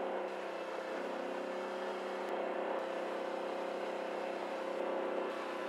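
CFMoto ATV engine running steadily as the ATV rides along, an even drone with several held tones.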